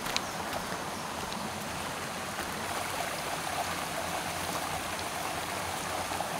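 Shallow rocky mountain stream running over stones: a steady rush of water.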